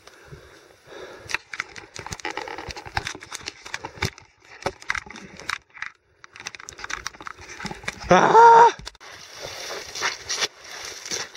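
Steps pushing through dry marsh grass, with irregular rustling and crackling. About eight seconds in, a man lets out one loud yell lasting under a second.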